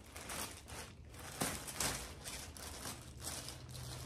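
Thin plastic mailer bag crinkling and rustling as it is cut open with scissors, in short irregular crackles and snips.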